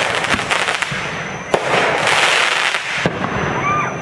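Aerial fireworks bursting: a few sharp bangs with dense crackling between them.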